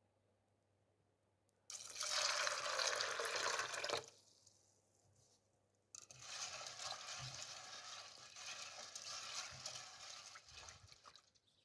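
Water pouring in two stretches, about two seconds and then about five seconds long, each starting abruptly.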